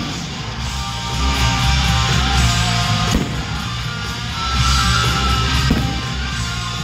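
Show soundtrack of loud guitar-driven rock music, with a couple of sharp bangs from fireworks bursting, about three seconds in and again near the end.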